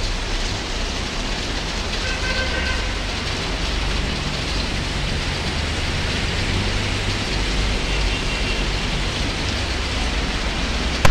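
Heavy rain falling steadily on a street, an even hiss with a low rumble underneath.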